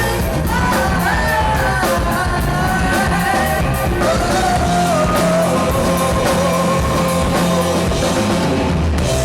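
Live band playing a heavy rock-soul track with drums, bass and guitar, and a sustained sung melody line gliding over it.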